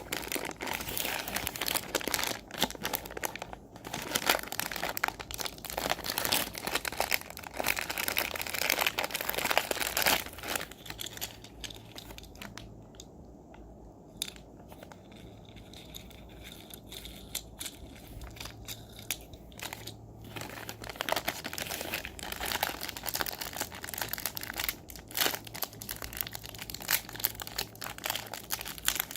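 Toy packaging handled and unwrapped by hand: plastic crinkling and rustling in irregular spurts, easing off for several seconds in the middle before starting again.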